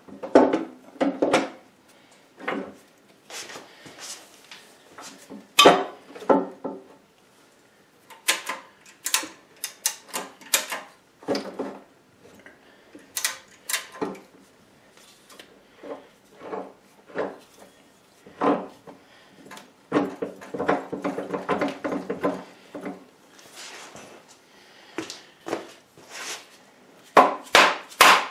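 Heavy metal lathe parts knocking and clunking at irregular intervals as the South Bend drive unit and its pulley are worked by hand into the bell housing, some knocks ringing briefly. Near the end comes a quick run of even knocks.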